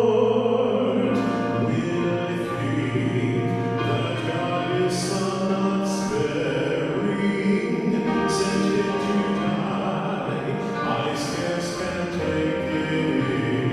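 Church music with voices singing slow, held notes.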